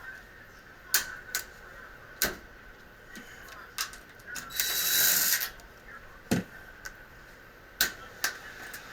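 Scattered clicks and knocks of tools and hardware being handled, with a brief hiss about halfway through.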